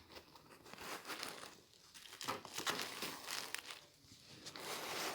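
Packaging being handled and unwrapped: irregular bouts of crinkling and rustling with small clicks.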